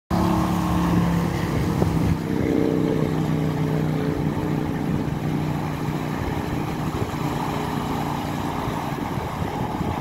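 Gusty wind buffeting the microphone, with a steady engine hum underneath that slowly fades away toward the end.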